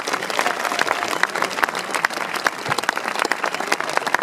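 Crowd applauding: dense, irregular clapping from many spectators.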